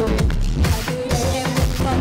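Dance-pop music with a steady electronic beat.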